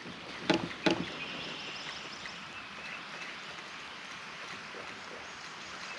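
Two sharp knocks in quick succession, then a bird singing for a couple of seconds over a steady outdoor hiss.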